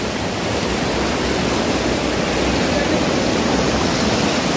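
Rushing river water pouring over rocks close to the microphone: a steady, even rush of white water.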